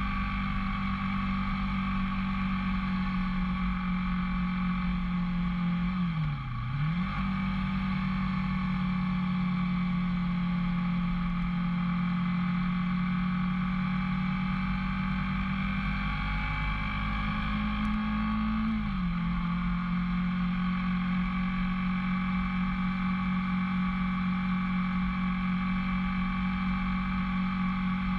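Motorcycle engine running at a steady cruising speed with wind buffeting underneath; the revs dip sharply and recover about six seconds in, rise slightly around sixteen seconds and settle back near nineteen seconds.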